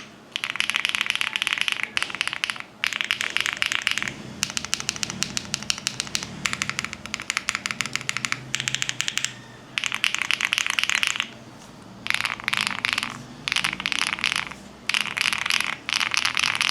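Typing on a Shortcut Studio Bridge75 mechanical keyboard: fast runs of key clicks, many a second, in bursts of one to two seconds with short pauses between.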